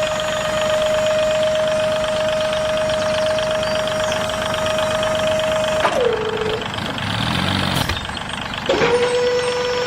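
A small motor running with a steady whine. It winds down with a drop in pitch about six seconds in, then starts up again at a slightly lower pitch near the end.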